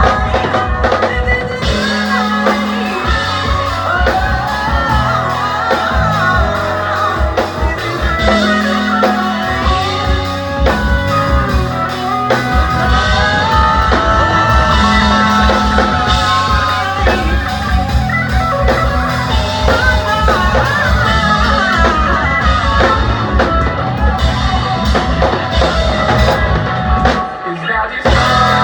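Live rock band playing at full volume: drum kit, bass and guitar, with singing over them.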